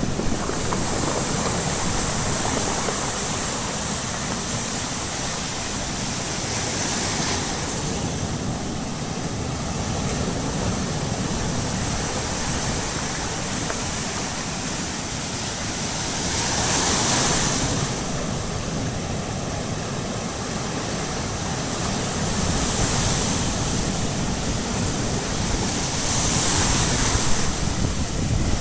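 Baltic Sea surf on the shore, waves washing in with a hiss every several seconds, the biggest about halfway through, over a steady wash of water. Wind rumbles on the microphone underneath.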